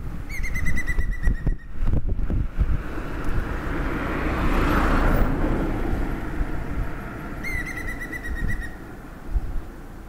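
Levaillant's green woodpecker giving its laughing call twice, each a rapid run of slightly falling notes lasting just over a second, once near the start and once near the end. Between the two calls a rushing noise swells and fades.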